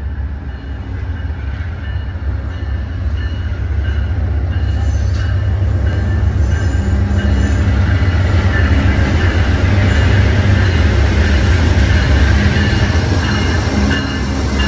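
Amtrak GE P42DC Genesis diesel locomotives pulling into the station. The deep engine rumble grows louder as the lead unit approaches and passes close by.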